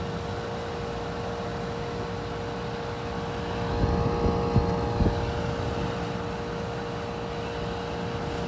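Frigidaire LAD254NTL dehumidifier running just after start-up, its compressor and fan motor giving a steady hum with one held tone; the compressor sounds healthy. A few short knocks come about four to five seconds in.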